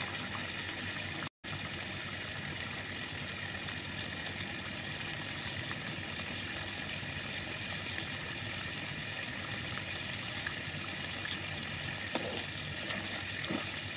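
Canned sardines and eggs simmering in a frying pan, a steady bubbling hiss as the liquid boils down. The sound cuts out for a moment about a second in.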